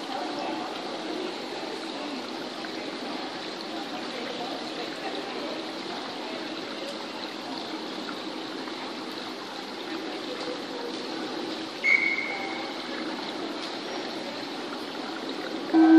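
Steady hiss of running water in an indoor swimming-pool hall, with one short, high, steady tone about twelve seconds in.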